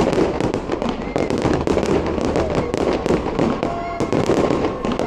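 Aerial fireworks going off in quick succession: a dense, continuous run of loud bangs and crackles with no let-up.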